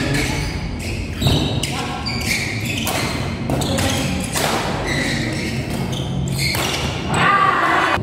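Doubles badminton rally: a quick run of sharp racket strikes on the shuttlecock, with the murmur of spectators in the hall behind.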